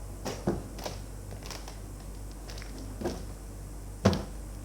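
A few scattered light knocks and clicks over a faint steady low hum, the loudest about four seconds in.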